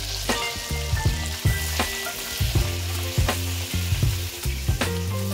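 Puri deep-frying in hot oil in a karahi, sizzling steadily while it is pressed with a slotted spoon. Background music with a steady beat and bass plays over it.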